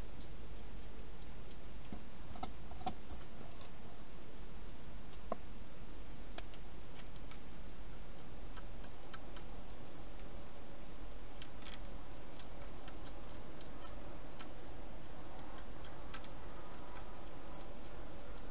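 A hedgehog crunching dry food inside a plastic feeding box: scattered, irregular sharp clicks over a steady hiss.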